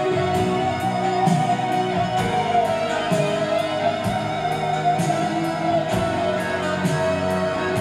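Music with a steady beat playing from a vinyl LP on a Technics SL-3200 direct-drive turntable fitted with a Shure M70BX cartridge.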